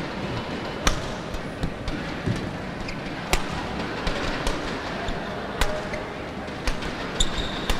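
Badminton rally: rackets striking the shuttlecock with sharp cracks every second or so, over steady hall noise.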